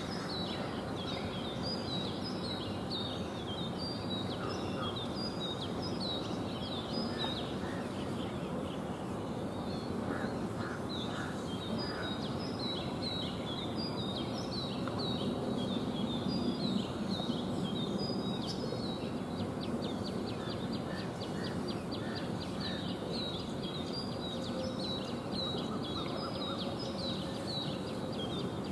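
Small songbirds singing and calling in quick runs of short, high, falling notes, pausing briefly about a third of the way in, over a steady background of outdoor noise.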